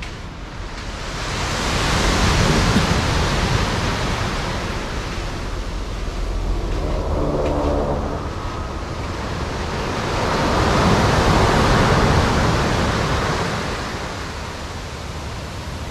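Ocean surf breaking and washing up a sandy beach, swelling twice as two waves come in, with a brief low hum about seven seconds in.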